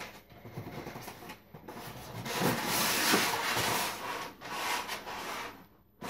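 White packing inserts scraping and rubbing against the cardboard box as they are pulled out of it, with a long, loud rub in the middle and lighter rustling after it.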